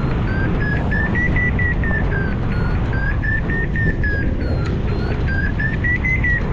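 Hang-glider variometer beeping quickly, about three to four short beeps a second, its pitch rising and falling twice: the climb tone of a glider rising in lift. Steady wind rush on the microphone underneath.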